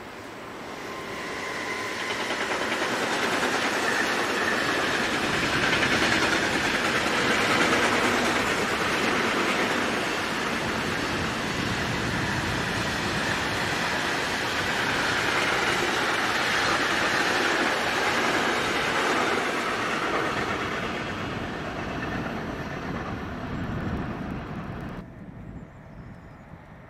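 Electric train passing on the line: wheel and rail noise with some clickety-clack swells over a few seconds, stays loud for about fifteen seconds, then fades away. The sound drops away abruptly near the end.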